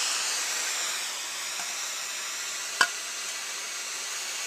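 Small handheld gas torch burning with a steady hiss. A single sharp click about three seconds in.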